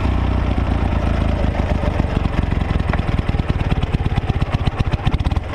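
Robot vacuum cleaner running with cats riding on it: a steady low rumble with a fast, even flutter.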